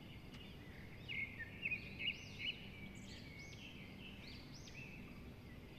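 Small birds calling outside in the pre-dawn dark: a run of short, quick chirps clustered in the first few seconds, with a few more later, over a steady low hum.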